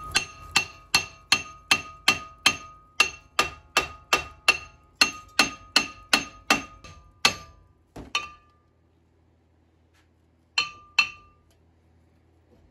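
Hammer blows on the rusted front brake rotor of a 2006 Toyota Camry to knock it off the hub: about twenty strikes at roughly three a second, each leaving the rotor ringing. After a pause come two more blows, then another pair.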